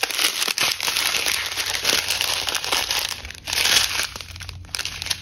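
Strips of small clear plastic zip bags holding round diamond painting drills crinkling as they are handled, with short lulls about three seconds in and near the end.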